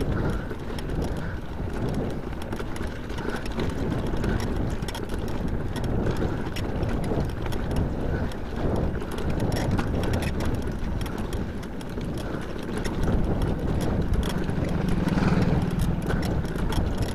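Mountain bike riding over a rough gravel macadam road: tyres crunching on loose stones and the bike rattling with constant small clicks and knocks. A low steady hum comes in for a couple of seconds near the end.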